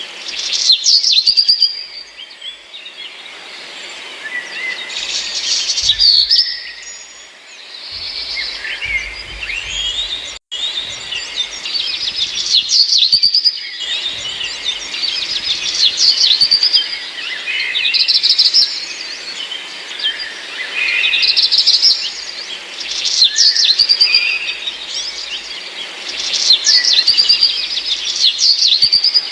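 A large flock of starlings calling at once: dense, overlapping high chirps and whistles that swell and fade every two or three seconds, with a brief dropout about ten seconds in.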